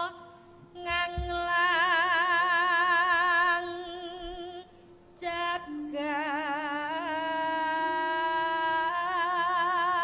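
A woman singing a Javanese bawa solo and unaccompanied: long held notes with wide vibrato, sung in free phrases with two short breaks and a step up in pitch about seven seconds in.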